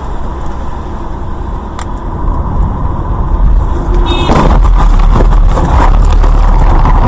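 Car driving, with engine and road rumble building up and turning very loud and heavy from about four seconds in. A brief high-pitched tone sounds at that point.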